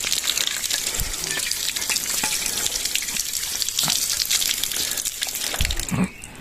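Steady hiss with dense fine crackling, typical of liquid sizzling on a hot stove where coffee has boiled over. It drops away about six seconds in.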